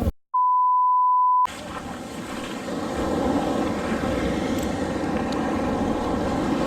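The sound cuts out and a steady, pure electronic beep plays for about a second, an edit-inserted bleep. It is followed by the continuous rush of beach surf and wind on the microphone, swelling slightly about three seconds in.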